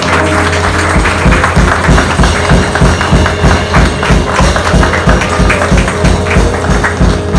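Hand clapping in a steady rhythm, a few claps a second, over a live band's deep bass and drums playing along. This is the congregation clapping in thanks.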